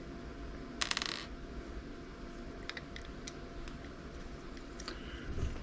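Small clicks and a short scraping rasp about a second in, from hands working apart the plastic housing of a wireless backup camera.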